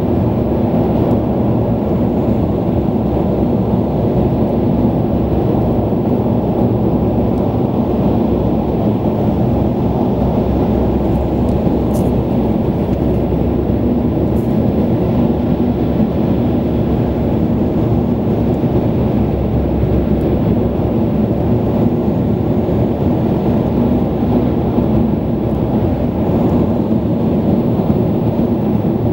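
Steady low rumble of a car's engine and tyres on the road, heard inside the cabin while driving through a road tunnel, with a faint steady hum running under it.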